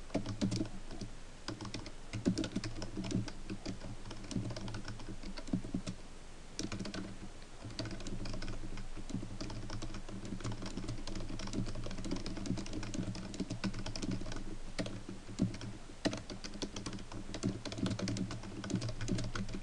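Typing on a computer keyboard: a fast, irregular run of key clicks, with a short pause about six seconds in before the typing resumes.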